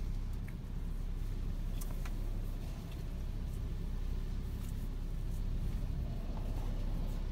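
Hurricane wind blowing as a steady low rumble, with a few faint ticks.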